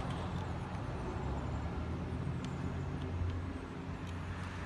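Steady low background rumble with a few faint, short clicks.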